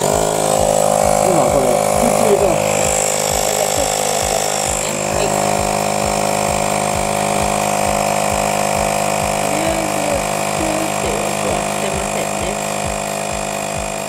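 Electric air compressor running steadily, inflating a car tyre that has just been sealed with a rubber puncture plug. It starts abruptly.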